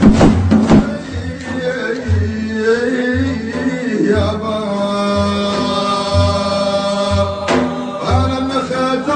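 Middle Eastern music from an 'ataba song. It opens with a quick run of sharp percussive hits, then a long held, gently gliding melodic line plays over a low drum beat about once a second.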